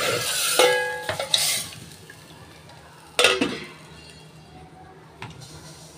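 Stainless steel plates being handled, clattering and scraping against each other, with a ringing clang about half a second in and a sharp knock about three seconds in, then softer metal handling.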